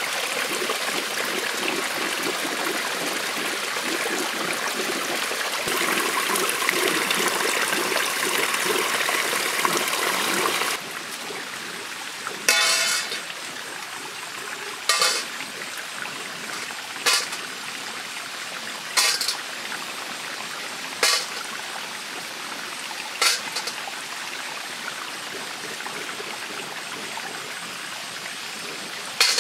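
Water in a shallow forest stream: a loud steady rush of running water that drops suddenly about eleven seconds in to a quieter trickle. Over the trickle a short, sharp call repeats about every two seconds.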